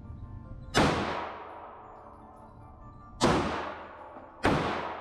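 Three handgun shots on an indoor shooting range: one just under a second in, then two more about a second and a quarter apart near the end. Each crack is followed by a long echoing decay.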